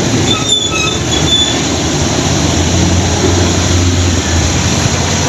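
Heavy diesel tanker truck traffic on a wet road: a steady low engine rumble under a constant hiss of tyres on wet asphalt, with a few faint short high tones about half a second to a second and a half in.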